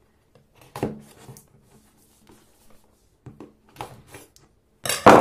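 Handling of a smartphone's cardboard retail box during unboxing: scattered rubbing, taps and light knocks, with a louder sharp knock near the end.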